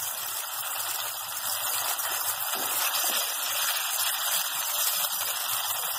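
Tomato-puree gravy in hot oil, sizzling and bubbling steadily as it cooks in a non-stick pan.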